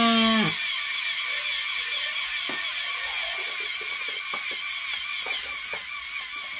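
A bagpipe practice chanter, blown by a LEGO pneumatic compressor, sounds one note that falls in pitch and dies out about half a second in. The LEGO compressor keeps running with a steady high, wavering whine, with a few light clicks and taps from about two seconds in.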